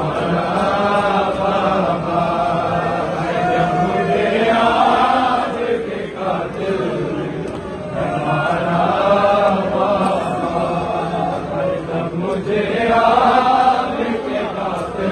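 A large crowd of male mourners chanting a Muharram noha (lament) together in long sung phrases, swelling a few seconds in and again near the end.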